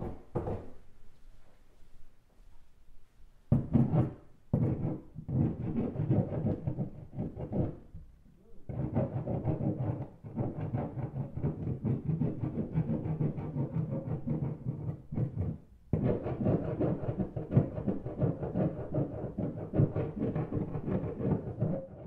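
Rough scraping against a wall, heard from inside the room. It is faint for the first few seconds, comes in loud bouts from about three and a half seconds in, pauses briefly near eight seconds, then runs on almost without a break.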